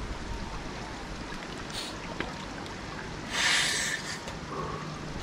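Stream water sloshing around a person wading chest-deep, with one louder splash about three and a half seconds in.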